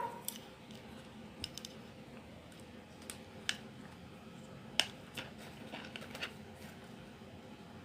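Light, irregular clicks and taps of small plastic parts being handled and fitted into a miniature car model, about ten in all with the sharpest a little after the middle, over a faint steady hum.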